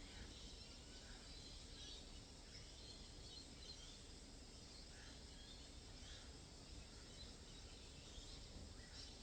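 Near silence: faint steady background noise with scattered faint, short high chirps. No singing-bowl tone is heard.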